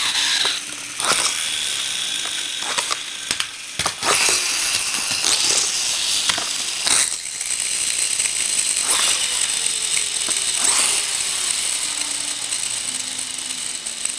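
Pullback toy train cars' spring motors whirring and ratcheting, with several sharp clicks and knocks in the first half as the small cars are wound and bump together, then a steadier high whir from about halfway through.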